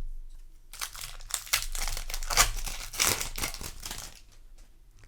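Foil wrapper of a Magic: The Gathering play booster pack crinkling and tearing as it is handled and opened, in a dense run of crackles from about a second in until about four seconds, then quieter.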